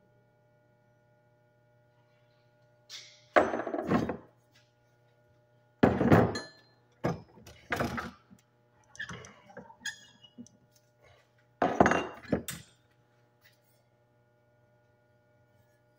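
Copper tubing and metal fittings knocking and clinking as they are picked up and handled, in about five separate bouts of clatter a couple of seconds apart.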